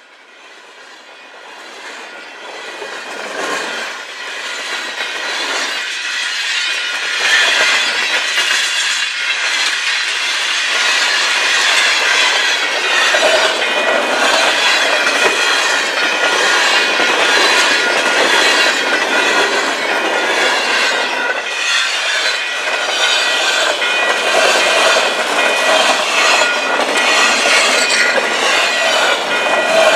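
Freight cars of a mixed freight train rolling past close by, a steady rumble and clatter of steel wheels on the rails. It swells over the first several seconds, then holds loud and steady.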